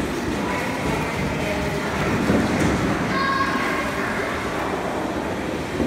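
Busy ice rink ambience: a steady rumble and scrape of ice-skate blades gliding over the ice, with skaters' voices mixed in.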